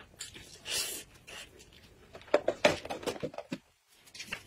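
A person eating with her hands: mouth smacks and clicks of chewing and sucking at food, with a short hiss about a second in and a dense run of smacks in the second half.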